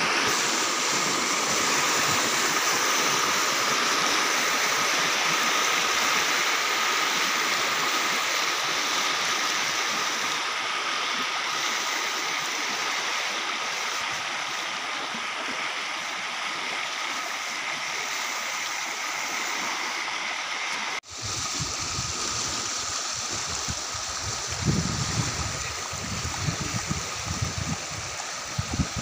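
Muddy flash-flood water rushing steadily over sandy ground, a continuous rushing noise. Over the last few seconds, uneven low rumbles join in under it.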